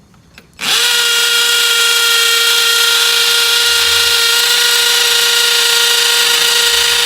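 Electric drill boring a hole into a stucco wall, starting up about half a second in and running loud at a steady pitch, then stopping suddenly at the end.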